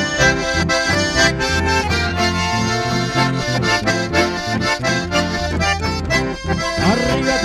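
Live chamamé band playing an instrumental passage: a piano accordion carries the melody over a bandoneon, electric bass and acoustic guitar, with no singing.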